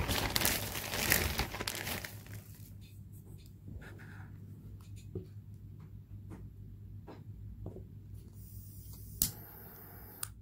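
Rustling and crinkling for about two seconds, then scattered light taps and clicks of hands handling a tealight candle in its metal cup, with a short hiss and one sharp click near the end.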